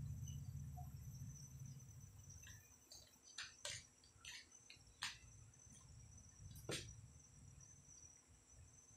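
Faint, steady chirring of crickets. A low hum fades out over the first few seconds, and a few sharp clicks sound in the middle.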